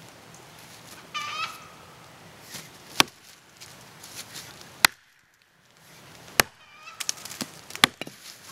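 Axe chopping into the trunk of a standing black gum tree, four sharp chops about a second and a half apart. The gum wood is tough and rubbery.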